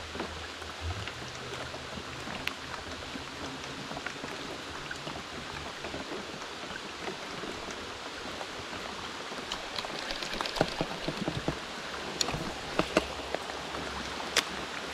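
Rain falling on a lake's surface: a steady hiss. Scattered sharp taps of drops become louder and more frequent from about ten seconds in.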